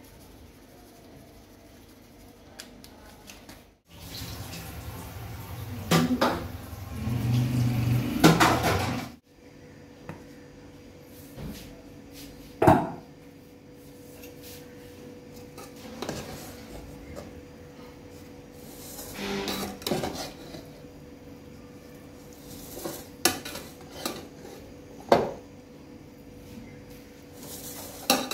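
Metal spoons and a slotted ladle clinking and scraping against an aluminium cooking pot as layered biryani rice is worked, in scattered sharp knocks, over a faint steady hum. A louder, denser stretch of handling noise fills several seconds near the start.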